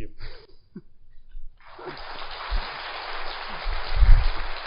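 Audience applauding, beginning about a second and a half in and continuing, with a few low thumps around four seconds in.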